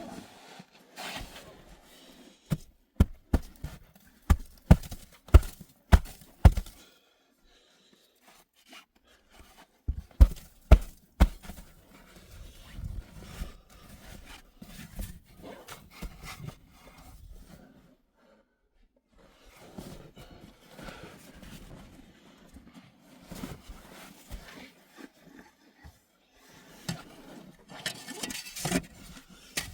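A run of sharp knocks, about two a second, then three more a few seconds later, followed by scattered rustling and crunching.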